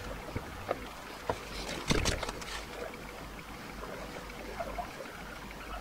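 Steady low background hiss, with a few light clicks and a short rustle about two seconds in, from the hand and small pen lamp being moved against a circuit board.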